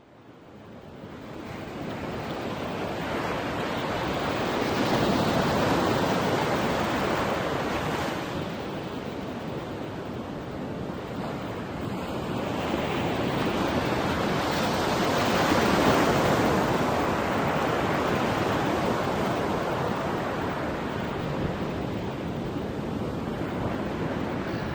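Ocean surf washing onto a beach, fading in at the start, with waves swelling and breaking, loudest about five seconds in and again about fifteen seconds in.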